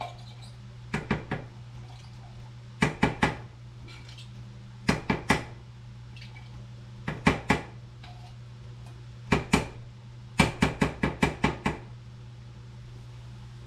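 An opened tin can of condensed tomato soup rapped while held upside down over a small metal saucepan, to shake out the thick soup: sharp metallic knocks in quick bursts of two to eight, about every two seconds.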